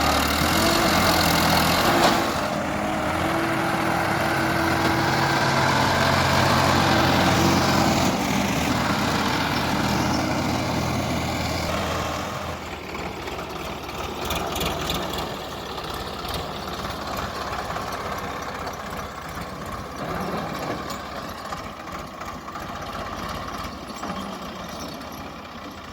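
A JCB 3DX backhoe loader's diesel engine running steadily. It is loud for about the first twelve seconds, then drops to a quieter, steady running for the rest.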